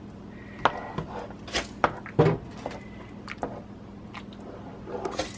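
A slotted spoon stirring thick, cheesy potato soup in a stockpot, knocking and scraping against the pot at irregular intervals, with the loudest knock about two seconds in.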